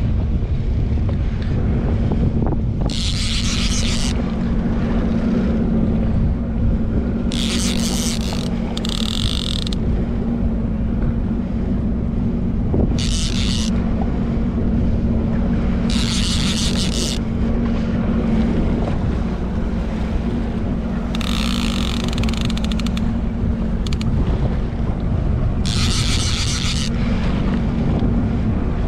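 A jetski engine running steadily at low revs under heavy wind buffeting on the microphone. Short high hissing bursts come and go every few seconds.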